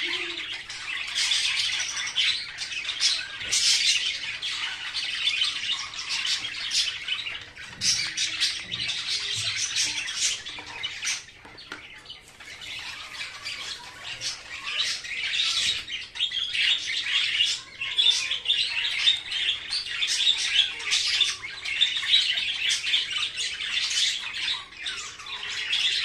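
Rose-ringed parakeet squawking and chattering in a rapid, almost unbroken run of high-pitched calls, with a brief lull about twelve seconds in.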